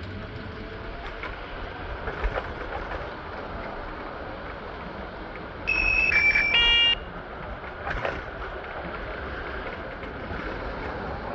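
A vehicle horn honks once, for about a second, over steady city traffic noise. Its pitch steps down and it turns buzzy before it cuts off. A single sharp knock follows about a second later.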